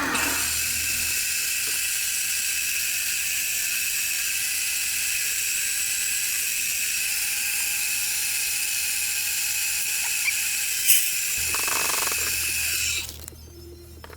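Shop power tool running steadily with a high, hissy whine, then shutting off about thirteen seconds in.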